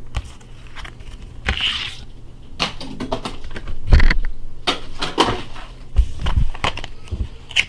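Scattered clicks, knocks and rustles of small items from a Pokémon theme deck being handled and put down, the loudest knocks about four and six seconds in.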